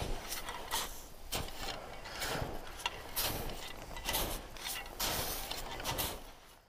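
Two technical ice axes planted in turn into firm spring snow: a series of irregular crunching strikes with rustling between them, fading out at the very end.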